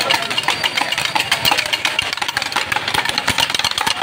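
A small engine running steadily close by, with a rough, rapid patter.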